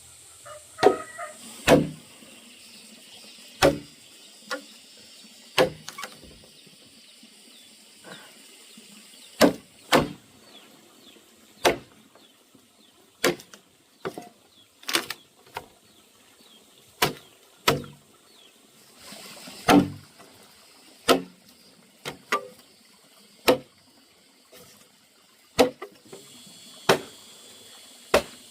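An irregular series of sharp knocks or chops, about one every second or so, some coming in quick pairs, over a faint steady hiss.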